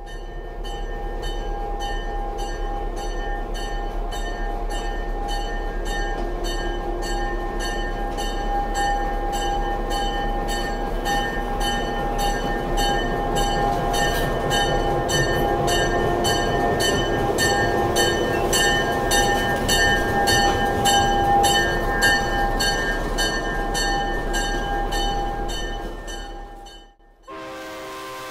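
Diesel locomotive No. 532 running beside the platform: a steady engine rumble with a constant whine on top.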